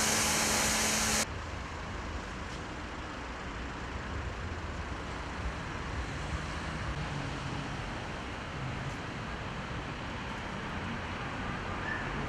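Foam brush spraying with a loud hiss and a steady pump hum, cut off suddenly about a second in. After that, steady traffic rumble and general outdoor noise.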